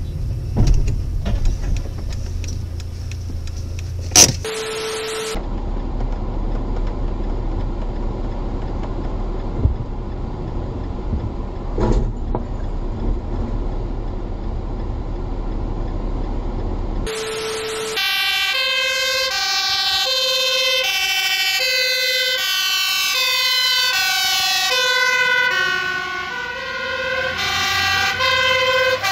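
Dashcam road noise with a sharp crash impact about 4 seconds in and another crash thud about 12 seconds in. From about 18 seconds on, a fire engine's two-tone siren steps up and down in pitch.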